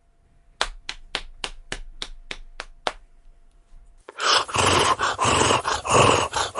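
A horse's hooves clop about nine times at an even pace, the strikes fading. Then, after a short pause, a horse gives a loud, rough call that pulses in quick beats.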